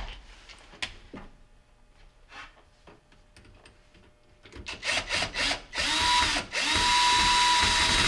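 Power driver tightening the dishwasher drain hose clamps: a few short bursts about four and a half seconds in, then two longer runs with a steady motor whine.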